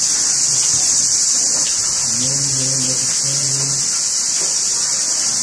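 Steady high-pitched insect chorus. A low droning tone sounds twice in a row near the middle.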